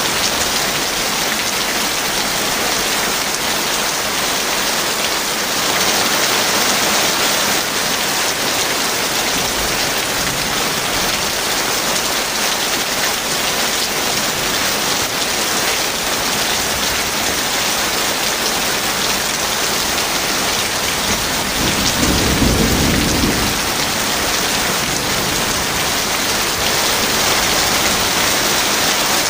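Heavy rain falling steadily, with a short low rumble of thunder about three-quarters of the way through.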